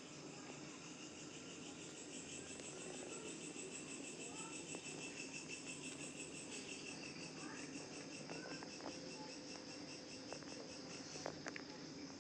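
Insects trilling steadily in a fast, finely pulsed high-pitched chorus, with a few faint short chirps and clicks near the end.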